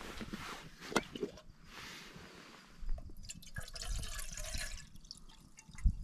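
Water poured from a stainless steel bottle into a small metal camping kettle, splashing and trickling, with a sharp knock about a second in and a low thump near the end from handling the gear.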